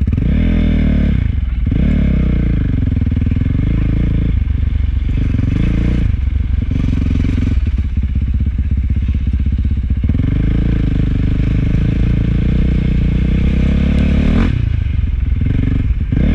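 Motocross dirt bike engines running and revving, the pitch rising and falling with the throttle, with a sharp rev near the end.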